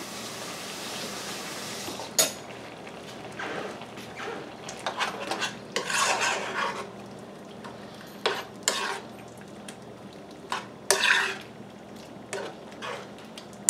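A spoon stirring a pot of thick, simmering vegetable stew, clinking and scraping against the pan in short bouts, with a louder scrape late on. A soft, even hiss of the simmering pot comes first.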